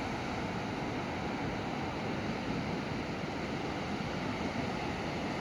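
Steady wash of gentle sea surf, an even rushing noise with no distinct breakers.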